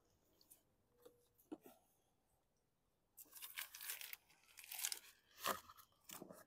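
A few faint clicks as the mower's fuel cap is unscrewed. About three seconds in, an irregular rustling, crinkling noise starts as a plastic gas can is lifted and handled over the fuel filler.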